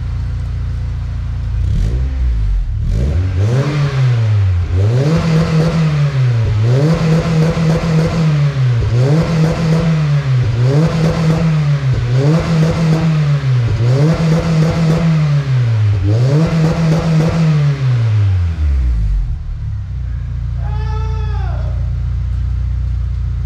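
Honda CR-V's B-series 2.0-litre four-cylinder engine, exhaust running through a FlowMaster catalytic converter, revved in neutral: it idles, then blips up and back down again and again, about one rev every second and a half, then settles back to idle. The tone is a little more aggressive out the tailpipe.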